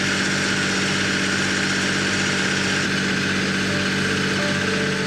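A small boat's engine running steadily under way: an even low drone with a broad hiss over it.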